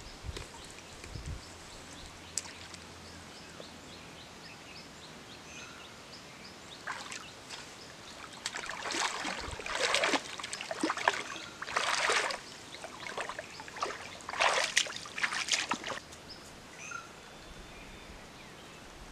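Water sloshing and splashing around a person's legs as he wades through waist-deep river water, in several bursts from about seven seconds in.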